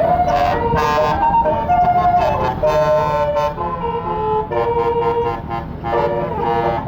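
Telolet basuri musical bus horn playing a tune: loud, multi-toned horn notes that jump from pitch to pitch every fraction of a second, over a low vehicle rumble.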